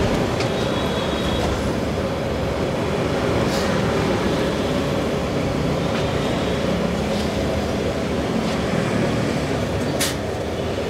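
Steady rumble of street traffic, with a short sharp click about ten seconds in.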